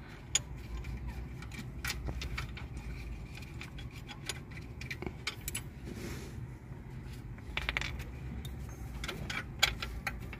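Scattered, irregular metallic clicks and clinks of a socket on an extension and loose 13 mm bolts being worked out and handled, over a low steady hum.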